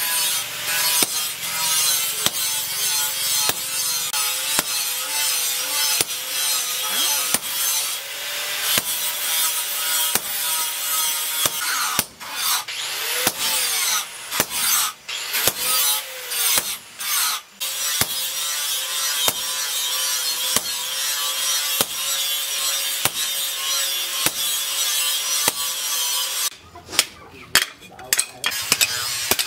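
Hammer blows on a hot-cutting chisel set against a red-hot cleaver blank of plough-disc steel on an anvil, about two strikes a second, with a few short pauses. A steady hiss runs underneath.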